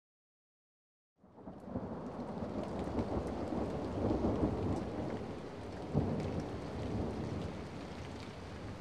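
Rain falling with a rolling rumble of thunder, starting suddenly about a second in after silence and swelling in the middle, with one sharper crack about six seconds in.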